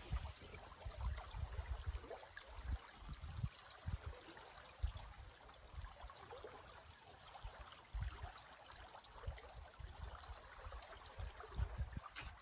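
Mountain stream flowing, a faint steady rush of water, with irregular low thumps throughout.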